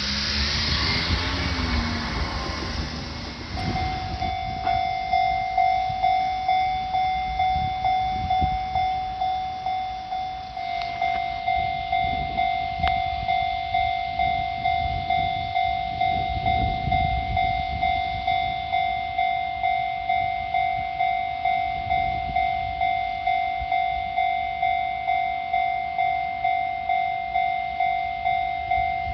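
Japanese level-crossing warning alarm starting about three and a half seconds in and ringing on steadily, a high electronic ding repeating about one and a half times a second. A rumble fills the start, before the alarm.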